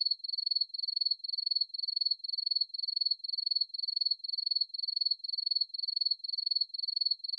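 Cricket-chirp sound effect: a high trilled chirp repeating about twice a second, alone on an otherwise silenced soundtrack.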